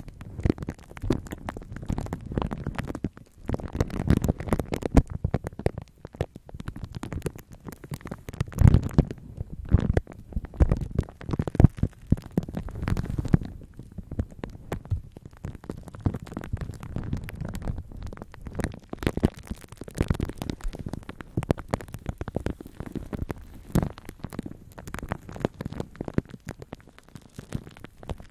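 Two soft makeup brushes squishing and rubbing foam on top of a microphone wrapped in plastic film, right against the mic: dense, irregular, mostly low crackling squelches with crinkles from the film.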